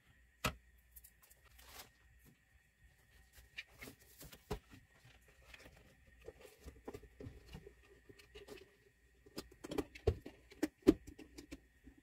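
A wooden spatula scrapes and knocks in a bowl of sticky whole-wheat dough, then a clear plastic container lid is handled and pressed down. A cluster of sharp plastic clicks and knocks comes about ten seconds in.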